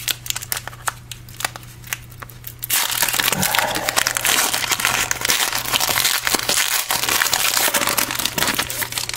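Foil wrapper of a trading card pack crinkling as it is handled and opened: a few light clicks at first, then continuous crinkling from about three seconds in.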